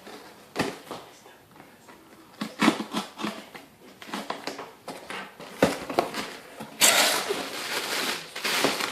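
Cardboard shipping box being handled and opened: scattered knocks and scrapes, then a longer stretch of rustling packing about seven seconds in.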